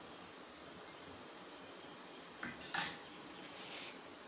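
Two light metallic clinks of a stainless steel tumbler knocking against a steel mixing bowl, a little past halfway, over a faint steady hiss.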